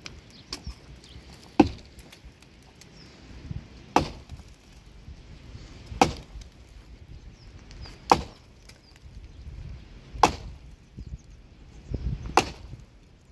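Sledgehammer striking a dry, dead tree trunk to break it up for firewood: six heavy wooden thwacks, about one every two seconds.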